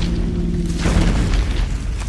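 Deep, booming rumble from a Baragon monster sound effect, with a steady low hum under it; the higher hiss fades after about a second.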